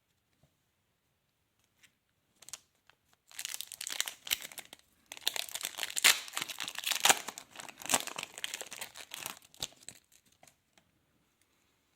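Trading card pack wrapper being torn open and crinkled by hand, a dense crackling that starts about three seconds in and stops near the end.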